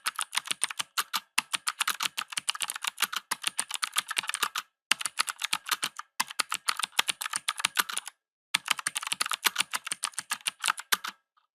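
Typing on a mechanical keyboard: fast, uneven runs of crisp key clicks, with brief pauses between bursts, stopping shortly before the end.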